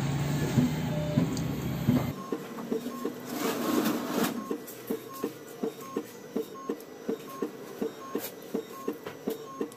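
Automatic paint tinting machine dispensing colorant into a paint pail. A louder low mechanical running sound changes abruptly about two seconds in to regular clicking, about three clicks a second, with a short recurring high tone.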